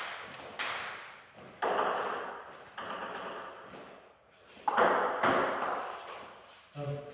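Table tennis ball being hit and bouncing on the table: about six sharp clicks at an uneven, unhurried pace, each echoing in a large hall.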